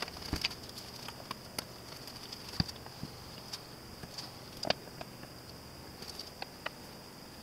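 Scattered light clicks and knocks of small maple and walnut end-grain blocks being handled and set down on a wooden gluing board, a few seconds apart. A faint steady high-pitched whine runs underneath.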